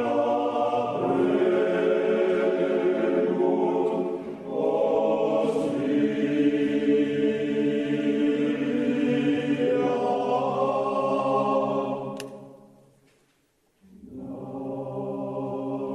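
Slow closing music of held, choir-like chords that change every few seconds. It fades out about twelve seconds in, and after a moment of near silence a new piece of the same kind begins.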